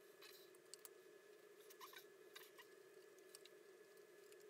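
Near silence: a steady faint hum, with a dozen faint scattered clicks and taps as a plastic pickguard and its pickups are handled and set onto the guitar body.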